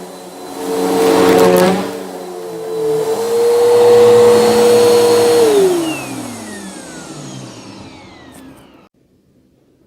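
Bissell vacuum cleaner running with a brief burst of crunching from the brushroll about a second in, then switched off: the motor's whine falls steadily in pitch as it winds down and stops near the end.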